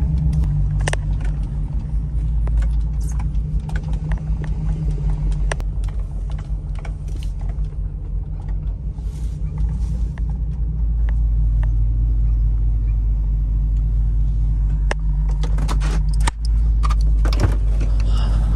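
GMC Yukon's V8 engine running as the SUV rolls slowly over a grassy lot, heard from inside the cabin. Frequent light clicks and rattles from the cab sound over the steady engine drone.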